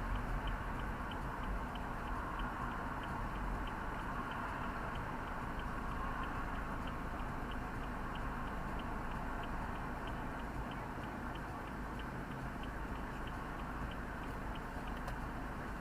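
Steady low rumble of a car's interior with a small, even ticking of about two to three ticks a second.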